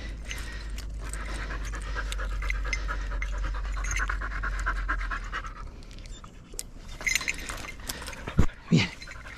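Dog panting fast and steadily, close by, then a few rustles and a couple of sharp knocks near the end.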